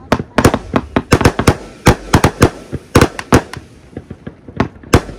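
Fireworks going off: a fast, irregular string of sharp bangs, several a second, thinning out for a moment near the end.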